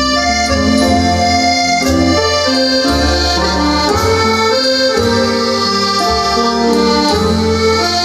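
Instrumental music played back through a home-built loudspeaker: held chords over a bass line that changes about once a second.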